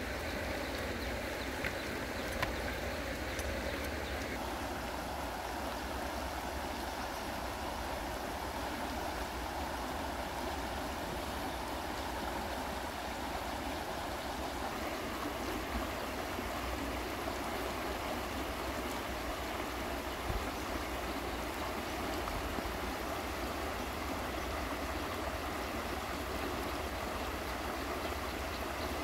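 Shallow river flowing over rocks: a steady rush of water.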